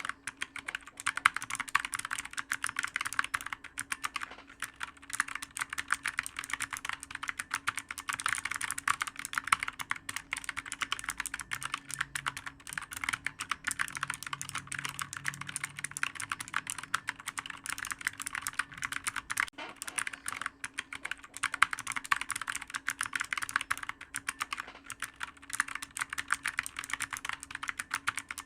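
Rapid, continuous typing on a clicky computer keyboard, many keystrokes a second with brief pauses, over a faint steady hum.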